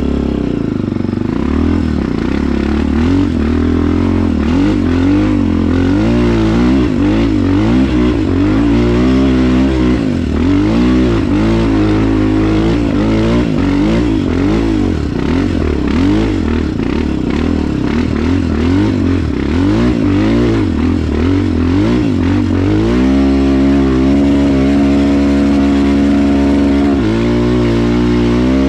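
Motorcycle engine pulling hard up a steep, slippery mud hill, its revs rising and falling again and again as the rear tyre spins for grip. About 23 seconds in the engine settles on a steadier, higher note for a few seconds, then changes again near the end.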